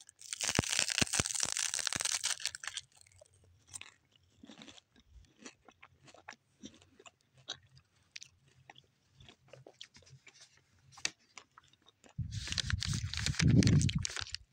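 Crunching bites and chewing of a crispy grilled rolled seaweed snack: a loud crunchy stretch at the start, quieter scattered chewing clicks, then another loud crunching stretch near the end.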